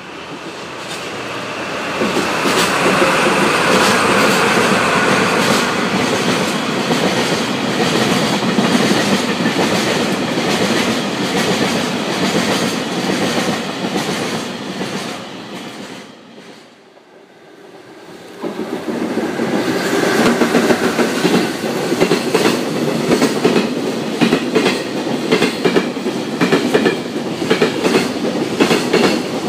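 A pair of DD51 diesel-hydraulic locomotives runs past with their engines working, growing louder as they approach, followed by their tank wagons rolling by. About halfway through, the sound drops away briefly, then container freight wagons pass at speed with wheels clacking rhythmically over the rail joints.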